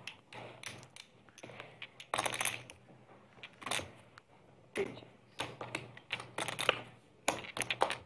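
Poker chips clicking against one another as players handle and riffle their stacks, in irregular bursts of quick clicks.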